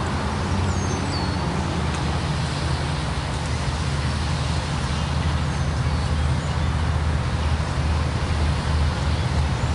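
Steady low engine drone over a haze of traffic noise, slowly growing louder through the second half. A brief high chirp sounds about a second in.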